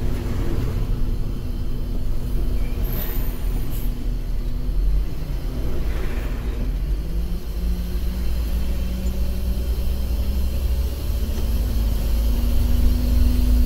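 Intercity bus driving at night, heard from inside the cabin: steady low engine and road rumble, the engine note shifting in pitch a few times. Two brief whooshes, about 3 and 6 seconds in, as other vehicles pass.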